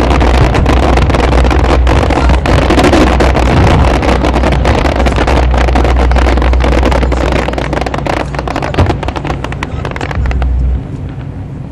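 Aerial fireworks going off in a dense barrage of bangs and crackles over a deep rumble, thinning out and dropping away suddenly about eleven seconds in.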